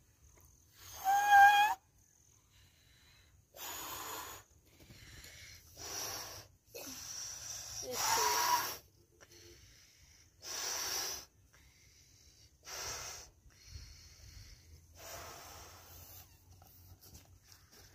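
Balloon being blown up by mouth: about seven hard breaths forced into it, each a second or less with short pauses between, the first and a later one carrying a brief squealing tone.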